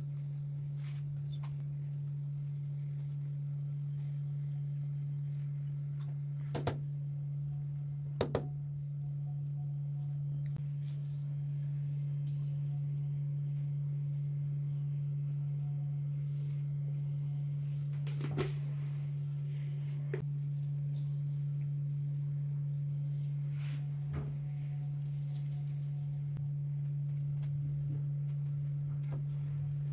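A steady low hum, with a few sharp light clicks and taps from handling the pan and ingredients; the loudest come about seven and eight seconds in, the second a quick double.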